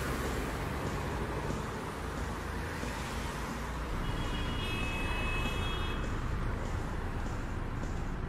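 Steady city road-traffic rumble, with a thin high-pitched tone held for about two seconds near the middle.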